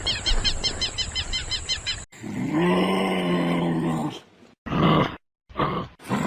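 Small birds chirping rapidly, about six chirps a second, break off abruptly about two seconds in. Then a large animal gives a low, drawn-out call of about two seconds, followed by two short calls.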